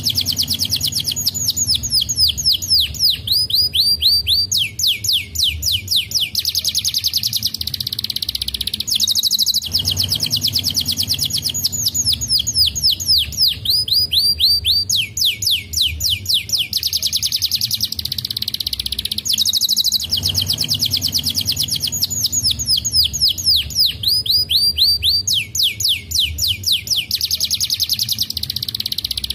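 Domestic canary singing: fast rolling trills of rapidly repeated high notes, some runs falling in pitch. The same song phrase of about ten seconds comes round three times.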